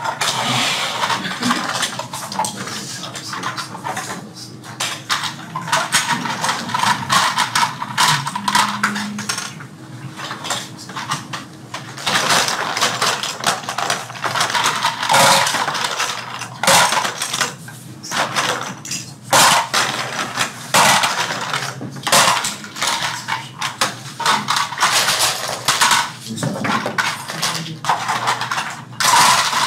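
Toy airplane parts clicking and clattering as they are handled on a work table, with many quick, irregular sharp clicks.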